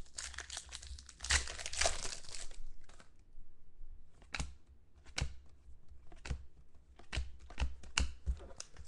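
Foil wrapper of a football trading-card pack crinkling and tearing open for the first couple of seconds, then a string of sharp snaps, about one a second, as the cards are flicked through one by one.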